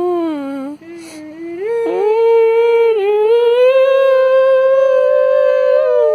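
A child's voice wailing in long, drawn-out sung notes: one note falls away, then after a short break about a second in the voice rises and holds a long note that slowly climbs in pitch.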